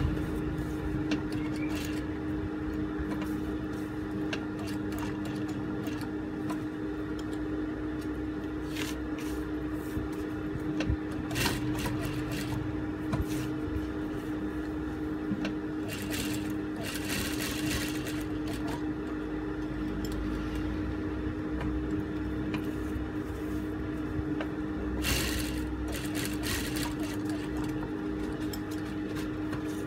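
Juki industrial sewing machine running steadily as it stitches through fabric and a paper pattern, with a constant motor hum. A few brief scratchy bursts come through, the longest a little past the middle and near the end.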